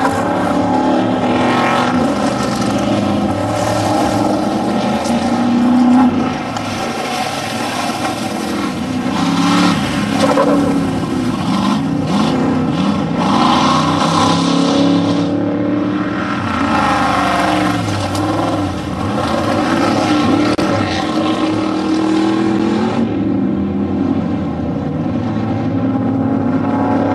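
Off-road desert race vehicles' engines revving hard, their pitch rising and falling as they drive past.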